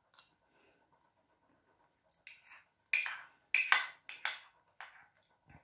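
Eating sounds: a metal spoon scraping and clicking in a small glass dessert pot, with mouth noises, as a few short sharp sounds over about three seconds after a near-silent start.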